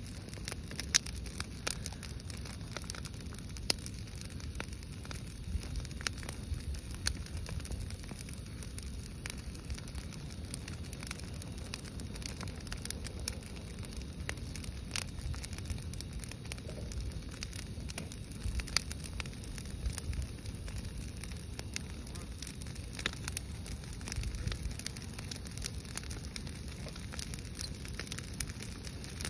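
Pile of dry branches and brush burning, crackling with frequent irregular snaps and pops over a steady low rumble.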